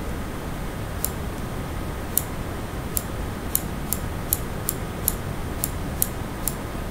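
Computer mouse button clicked eleven times at an uneven pace, the clicks coming closer together after the first three seconds, over a steady low hum.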